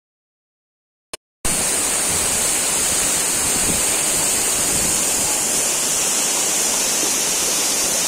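Rushing water of a waterfall and rocky stream, a loud steady rush that starts abruptly about a second and a half in, just after a single brief click.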